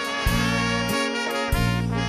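Live wind band playing a tune: saxophones and trumpet carrying the melody over low bass notes, with drum strokes marking the beat.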